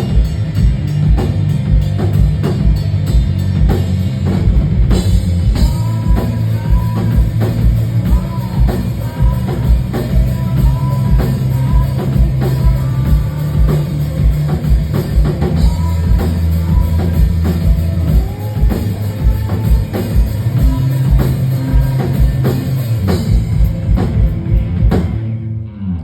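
Rock band playing live, with a driving kick-drum beat under sustained bass and guitars and a sung vocal line over them, stopping abruptly near the end.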